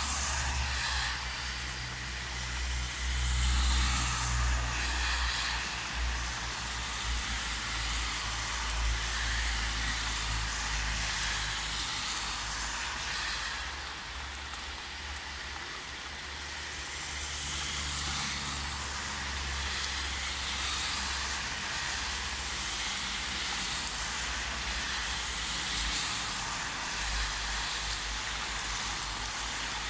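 Steady rain hissing during a thunderstorm, over a low rumble that swells and fades several times.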